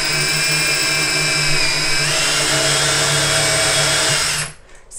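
DeWalt cordless drill with a 3/16-inch bit running steadily as it bores through a painted wooden cabinet door, its motor pitch sagging slightly under load about two seconds in; the drill stops near the end.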